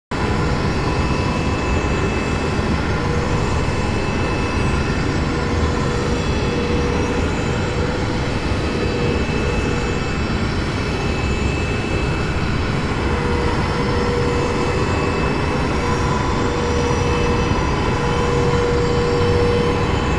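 ARC-170 starfighter engine sound effect as heard from inside the front-seat cockpit: a steady, dense rumble with faint held tones that swell and fade, made to loop.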